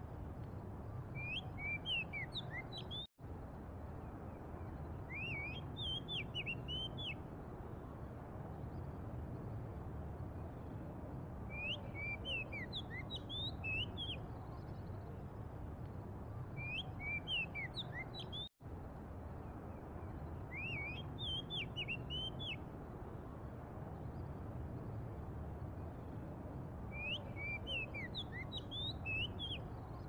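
Oriental magpie-robin singing: short phrases of clear whistled notes that glide up and down, coming every few seconds over a steady low rumble. The sound cuts out completely for an instant twice, about three seconds in and again past halfway.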